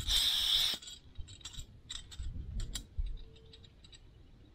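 A short hiss lasting under a second at the start, then scattered small clicks and ticks of a small hand-held metal mechanism being twisted and worked.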